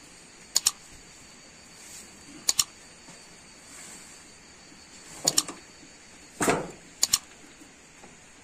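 Split firewood knocking and clacking as pieces are pulled from a stacked woodpile: sharp wooden clacks, mostly in quick pairs, four times, with one duller knock shortly before the last pair.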